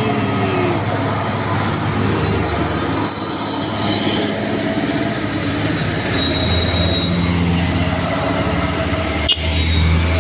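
Heavy bus diesel engine running close by on an uphill road, with a low drone that grows louder in the last few seconds. A steady high-pitched whine or squeal sounds over it, and there is a single sharp click near the end.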